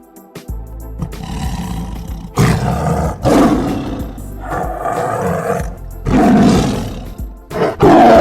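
A big cat roaring in several loud, rough bouts, over background music.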